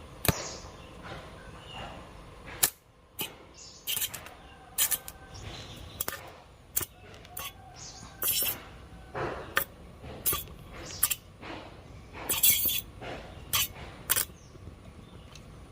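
A homemade 12 V battery welder's carbon-rod electrode being touched to an iron pipe, giving around twenty short crackling arc bursts at irregular intervals, a few drawn out into brief sizzles. The arc only strikes momentarily, enough for spot welds rather than a running bead.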